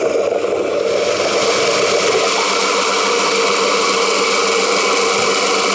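A machine running steadily, a constant hum over loud noise.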